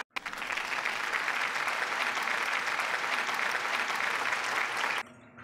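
Applause: a crowd clapping steadily, starting suddenly and cutting off abruptly about five seconds in.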